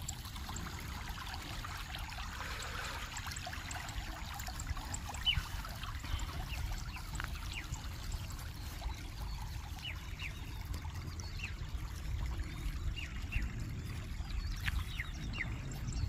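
Faint trickling, flowing water in an irrigation canal, with a steady low rumble underneath and faint scattered ticks.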